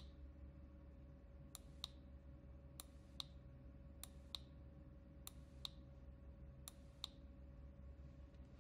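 Push-button switch on a Mil-Tec mini dynamo camping lantern clicking as it is pressed over and over: five pairs of small sharp clicks, about one pair every second and a bit.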